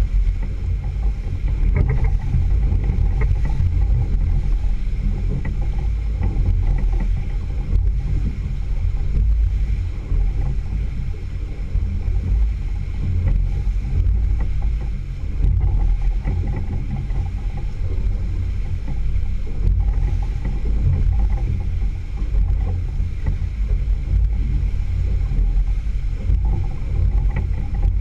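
Single outboard motor running steadily on a center-console boat trolling with lines out, with water rushing through the wake. A dense, steady low rumble dominates throughout.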